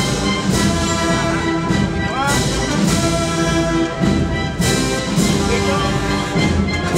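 Brass band playing a slow processional march: sustained brass chords with a few sharp percussion hits.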